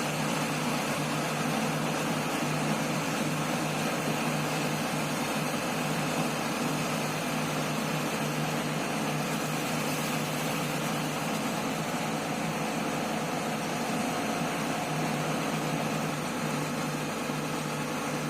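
Excavator diesel engine running steadily, a constant low hum with no change in pitch or load.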